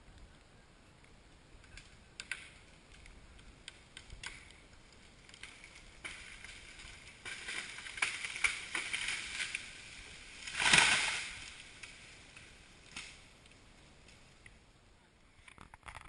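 Winch-pulled oak tree coming down: scattered snaps and cracks, then a swelling rush of branches swishing through the neighbouring canopy, and a crash as the tree hits the ground about eleven seconds in.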